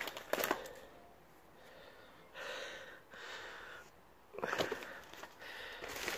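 Footsteps crunching on dry leaf litter and twigs, with clusters of crackles near the start and again about two-thirds of the way in, and the walker's breathing close to the microphone in between.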